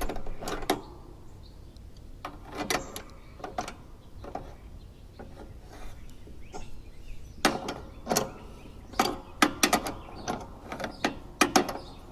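Socket wrench clicking as it tightens the bolt on the mower deck pulley, with scattered sharp clicks and metal knocks in irregular groups, more of them in the second half.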